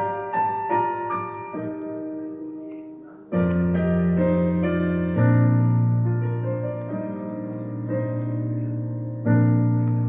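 Background piano music playing a melody of single notes, with deep bass notes joining about three and a half seconds in.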